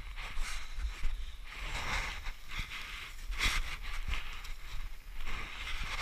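Wind rumbling on the microphone, with a run of short rustling scrapes and crunches as a climber with an ice axe moves over snow and rock, one every half second to second.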